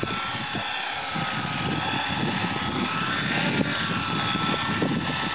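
JR Ergo radio-controlled model helicopter hovering just above the ground: its glow engine and rotors give a steady high whine that wavers slightly in pitch.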